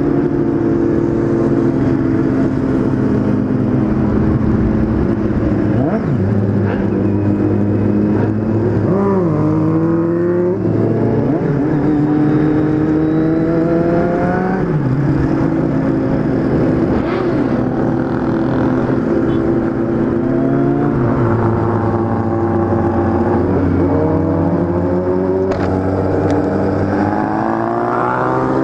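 Kawasaki Z750's inline-four motorcycle engine under way, its pitch climbing as it accelerates and dropping back at each gear change. It holds steady for several seconds in the middle, then pulls up through the revs again.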